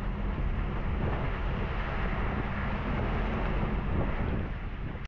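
Wind rushing over the microphone aboard a sailing yacht under way in rough water, with a steady low rumble underneath.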